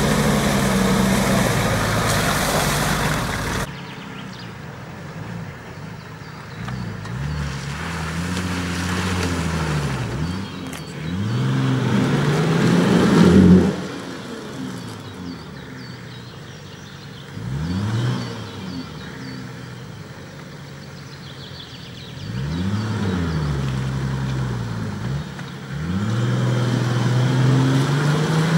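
Nissan Patrol 4x4's engine working through deep mud, revving up and down again and again as the driver blips the throttle, its pitch climbing and falling with each rev, loudest about thirteen seconds in. The first few seconds hold a steadier engine under a loud rushing noise that cuts off abruptly.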